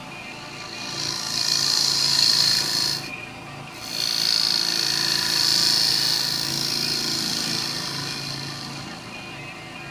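Turning gouge cutting the outside of a spinning cherry bowl on a wood lathe, a rushing shearing sound of wood being cut away. It swells, breaks off briefly about three seconds in as the tool lifts, then resumes and fades near the end.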